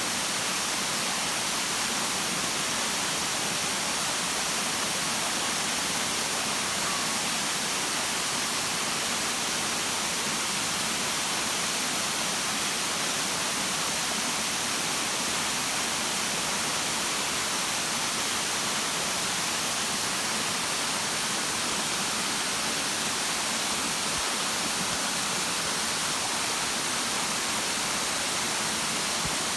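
Waterfall: water pouring and rushing in a steady, unbroken wash of noise.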